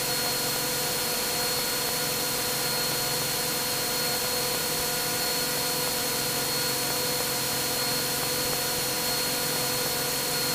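Cessna 182's Continental IO-550 six-cylinder engine and propeller running steadily at full climb power, heard from inside the cockpit as an even drone with a thin steady high tone over it.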